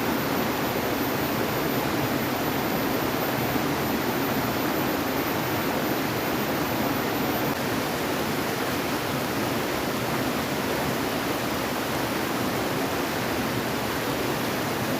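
Steady, even rushing of water, a dense hiss with no pauses or separate events.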